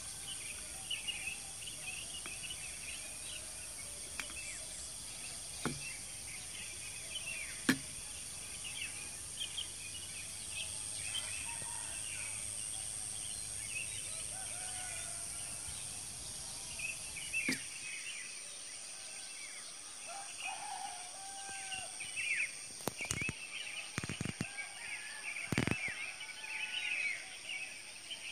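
Outdoor evening ambience: a steady high insect drone with many small bird chirps and calls, and a few short knocks. About two-thirds of the way in the low background rumble drops away.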